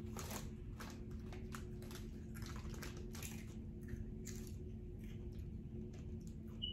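Close-up chewing of crunchy Fritos Flamin' Hot corn chips: a run of irregular crunches over a steady low hum.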